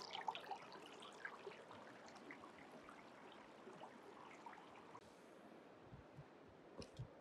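Faint trickle of shallow stream water running over a sluice box's ribbed mat. Near the end come a few soft low thumps.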